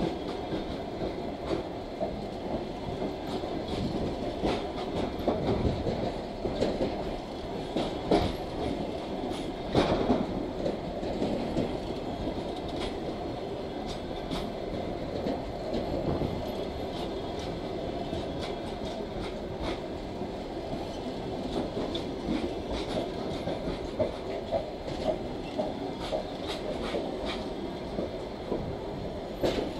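Passenger coaches of a departing train rolling past, their wheels clicking irregularly over rail joints and points, the loudest knocks about eight and ten seconds in, over a steady rolling rumble.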